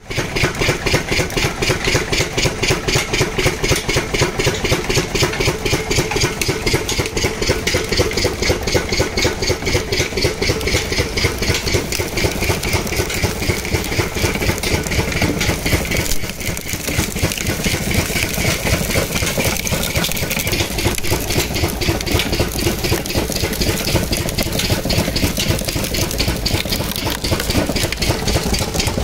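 Small 5 hp sugarcane crusher (kolhu) running steadily, with a fast, even pulse and a brief dip about halfway through.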